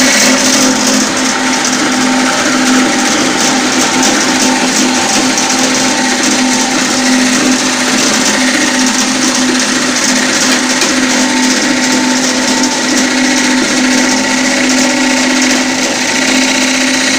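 Grain grinding mill running loud and steady, milling dried plantain into flour: a constant hum under a dense hissing rush.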